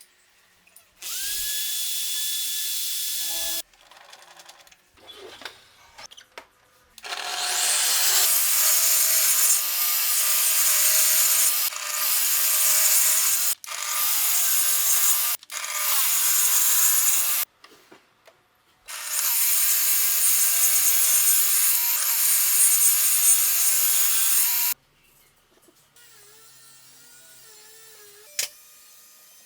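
A power tool working wood in several runs, each starting and stopping sharply: a short run near the start, then a long run of about ten seconds broken by two brief gaps, and another of about six seconds.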